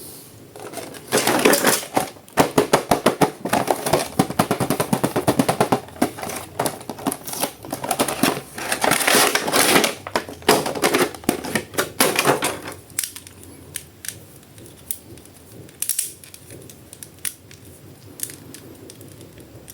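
Rapid clatter of sharp clicks and rattles, like a plastic toy and its packaging being handled during unboxing; dense for about twelve seconds, then thinning to scattered clicks.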